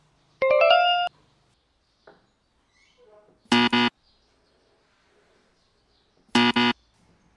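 Edited-in quiz-show sound effects: a quick rising chime of notes about half a second in, then a harsh 'wrong answer' buzzer, two short blasts, about three and a half seconds in and again near the end. The buzzers go with red crosses marking board edges that are not square.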